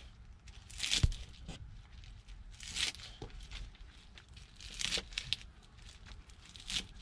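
Kitchen knife slicing through crisp pechay (bok choy) stalks on a wooden cutting board: four crunchy cuts about two seconds apart, the first ending in a sharp knock of the blade on the board.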